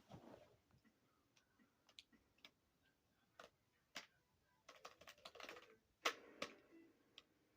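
Keys of a keyboard clicking as they are pressed, irregular single clicks and a quicker run of them about five to six seconds in. Faint held tones sound under the clicks near the end.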